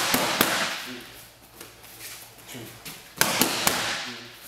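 Boxing gloves smacking against handheld focus mitts: two quick three-punch combinations, about three seconds apart.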